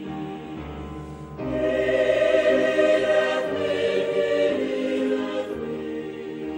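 Choral music: a choir singing held chords, swelling louder about one and a half seconds in and softening again near the end.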